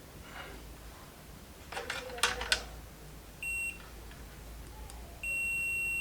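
Electronic beeps from a multimeter's continuity tester: a short beep about three and a half seconds in, then a long steady high beep starting about a second before the end. A few light clicks of handling come before them.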